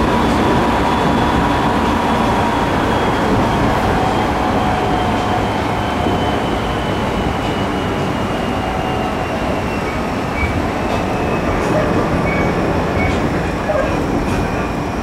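Running sound heard inside a JR 209 series 3100 electric train with a GTO-VVVF inverter and MT68 traction motors: a steady rumble of wheels on rail under thin whining tones. The tones slowly fall in pitch as the train slows.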